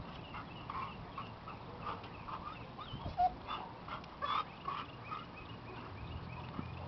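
Golden retriever giving short whines one after another, frustrated at a stick she can't reach in the bottom of an aluminum boat.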